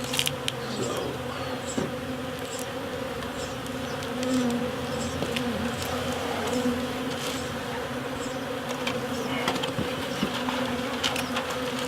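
Many honeybees buzzing around an open hive, a steady hum, with scattered light clicks.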